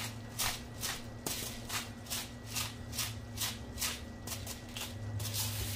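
Salt being shaken from a salt container into a pot: a dry, even rattle of shakes, about two to three a second.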